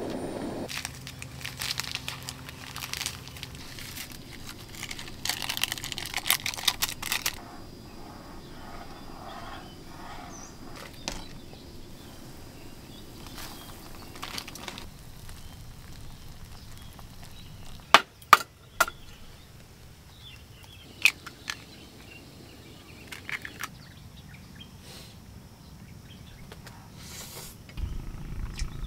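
Plastic instant-noodle seasoning packet crinkling as it is opened and shaken over a saucepan of heating water, in two bursts within the first seven seconds, over a faint steady hiss. Past the middle come a few sharp clicks and taps, then scattered quieter ones.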